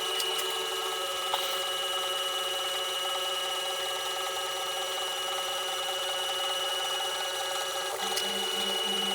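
Monoprice Maker Select Plus 3D printer running mid-print, its stepper motors whining in several steady tones. There is one short click about a second in, and near the end a low pulsing hum sets in, a few pulses a second.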